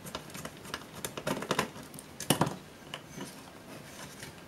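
Irregular small clicks and taps of a screwdriver and handled metal and plastic parts as a small screw is taken out of a laptop's main board; the sharpest click comes a little past halfway.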